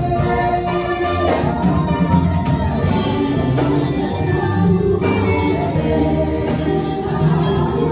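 Live gospel music: a group of singers at microphones backed by keyboard and drums, with a steady beat and held notes.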